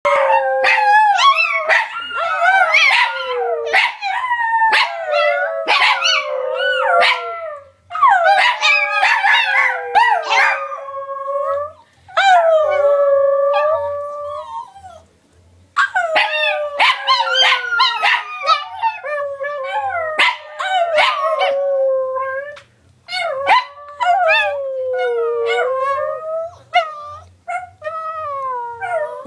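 Chihuahuas howling together, several wavering voices overlapping in long bouts, with short yips mixed in. The howling breaks off briefly a few times and starts up again.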